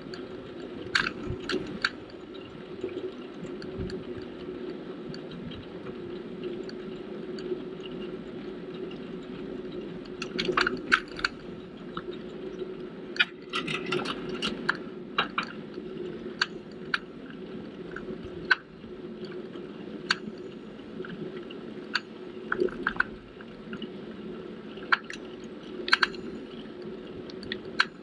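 Folding bicycle riding along a paved cycle path: a steady rolling rumble from the tyres and moving air, with irregular sharp clicks and rattles from the bike over bumps, bunched together in places.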